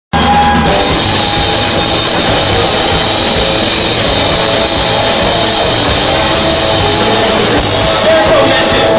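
Loud rock music, an instrumental intro with no singing yet, starting abruptly right at the beginning.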